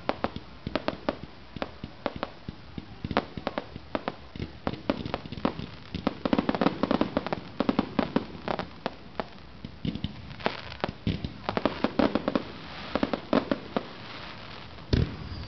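Fireworks going off: a rapid, irregular string of sharp bangs and crackling pops from bursting shells, with one louder bang near the end.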